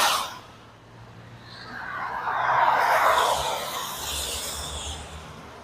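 A car driving past on a rain-soaked road: the hiss of its tyres on the wet surface swells to a peak about three seconds in and then fades, with a low rumble as it goes by.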